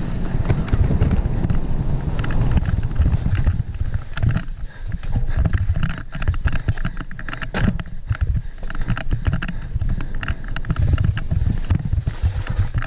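Wind buffeting a helmet-mounted camera's microphone during a fast mountain-bike descent. Rattles and knocks come from the full-suspension bike and its tyres running over rough dirt.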